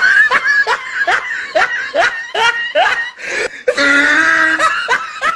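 A person laughing in a high-pitched voice: a run of short, rising 'ha' sounds about three a second, broken by a long held squeal about two-thirds of the way through.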